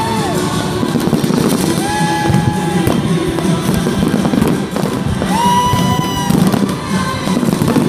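Fireworks bursting and crackling in quick succession over loud music.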